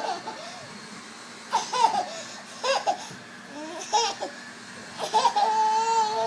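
Baby laughing hysterically in high-pitched bursts, about five fits of laughter, the last drawn out into a long squeal near the end.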